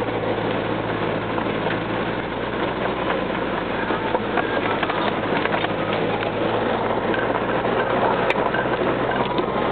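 Vehicle engine running at low speed, heard from inside the cab, with steady road noise and small rattles and ticks from driving slowly over a dirt road. A single sharp click comes near the end.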